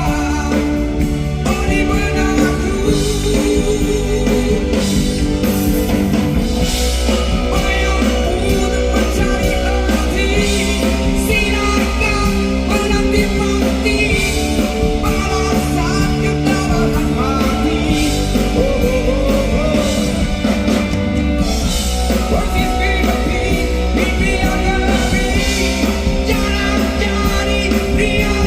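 A live rock band playing a song with singing, steady and loud throughout.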